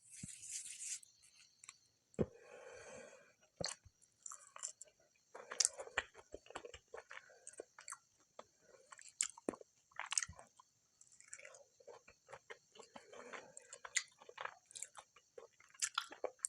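A person biting into and chewing a crunchy fried egg snack close to the microphone, with scattered small crunches and mouth clicks.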